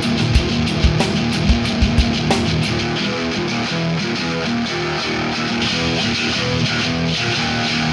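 Rock band playing an instrumental passage: electric guitar over drums. The drum hits drop away about three seconds in, leaving mostly the guitar.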